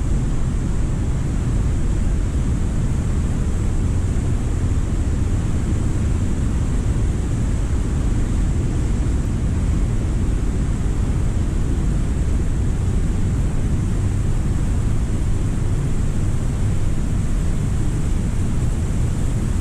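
Cumberland Falls, a large river waterfall in flood, pouring with a steady, deep rush of water that does not change.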